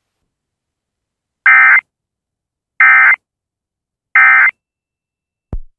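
Emergency Alert System end-of-message data bursts: three short, shrill digital squawks about 1.4 seconds apart, signalling the end of the alert. A brief low thump follows near the end.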